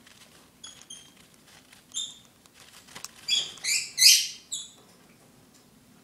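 Baby bird cheeping while being hand-fed from a syringe: a few short, high cheeps, then a louder run of rapid begging calls in the middle.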